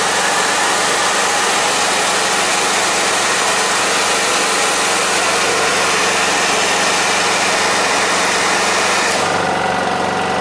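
Honda EU2200i inverter generator's engine running steadily under heavy load, under the loud airy rush of a heavy-duty hair dryer used as the load. About nine seconds in, the high hiss drops away sharply and the engine hum carries on.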